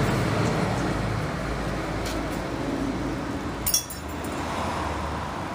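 A short, bright metallic clink with a brief ringing tail about two-thirds of the way in, over a steady low rumble of background noise.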